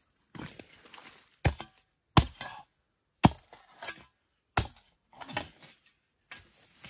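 Metal spade blade chopping into hard earth, one sharp strike about every second, each followed by a short scrape as the blade is pulled back through the soil.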